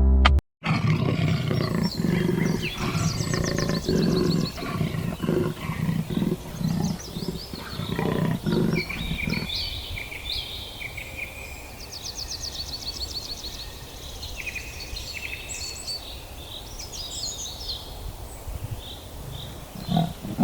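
A big cat roaring: a run of deep, repeated grunting pulses over the first half that stops about halfway through. Birds chirp and trill throughout, and deep grunts start again near the end.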